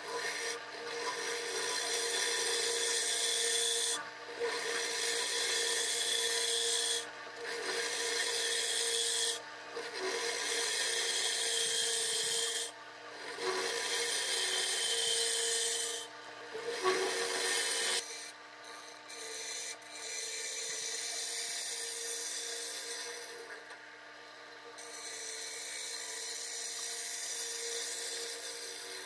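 A gouge cutting the bottom of a glued-up segmented wooden bowl spinning on a wood lathe: a shaving hiss in repeated passes of two to three seconds with short breaks, over the lathe's steady hum. The cuts are lighter in the last third.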